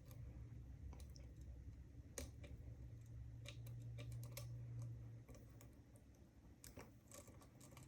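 Faint, irregular clicks of a lock pick and tension wrench working the pins of a Weiser key-in-knob lock cylinder fitted with serrated and spool security pins, under a low steady hum.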